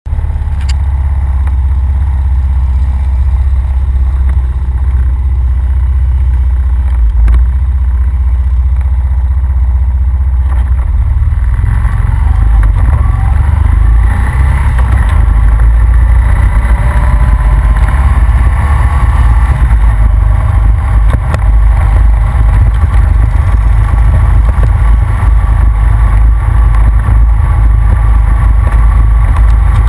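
Honda Rancher ATV engine running under a heavy low rumble of wind on a rack-mounted camera's microphone. About twelve seconds in it gets louder, and the engine's pitch rises as the quad picks up speed.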